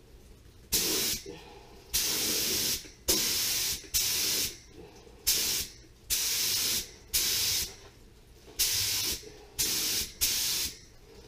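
Compressed-air gravity-feed paint spray gun hissing in about ten short bursts, each under a second, as the trigger is pulled and released for light passes of automotive paint.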